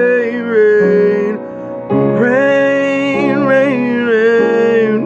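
Slow gospel song: a singer holding long notes with vibrato over piano accompaniment.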